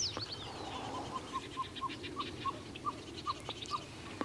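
Wild birds singing: a quick run of high, falling chirps at the start, then a series of short, low whistled notes, about three or four a second at first and slowing toward the end.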